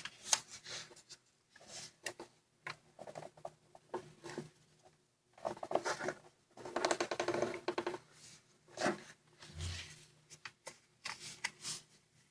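A sheet of origami paper rustling and crinkling as hands fold it and press the folds, in irregular bursts, with a longer, denser stretch of crinkling about halfway through.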